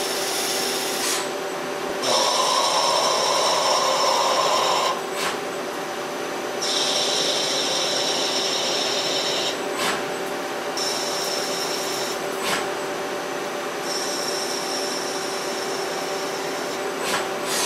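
Hwacheon Hi-TECH 230AL CNC lathe turning a titanium bolt: a steady spindle whine runs underneath, and four times the tool engages for a few seconds with a high, scraping, rasping hiss as it cuts the thread in successive passes.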